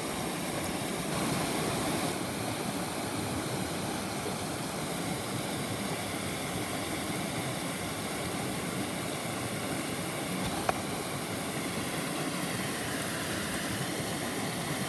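Steady rush of river water flowing, with one sharp click about ten and a half seconds in.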